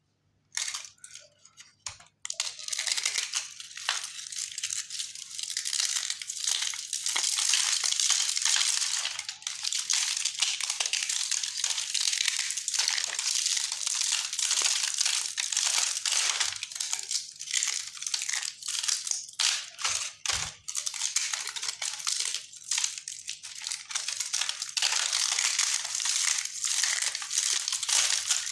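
Multani mitti (Fuller's earth clay) being crushed and crumbled: a dense, crackling crunch of many small cracks, starting about half a second in, with a brief pause near two seconds.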